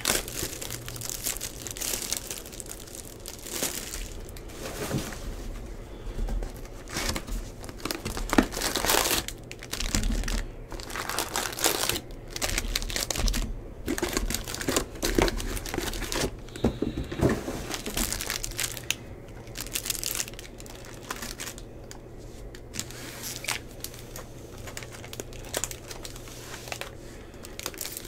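Plastic shrink-wrap being torn and crumpled off a box of 2022 Bowman Baseball cards, then the cardboard box opened and packs handled: irregular crinkling and tearing with sharp crackles scattered throughout.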